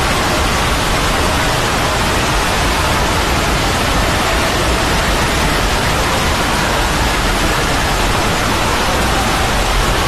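A loud, steady wash of noise made by dozens of video soundtracks playing over each other at once, so dense that no single sound stands out.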